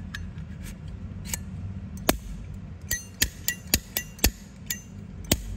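Metal case of a Zippo lighter being handled: a string of sharp metallic clicks and clinks, a few with a short ring, coming faster from about three seconds in.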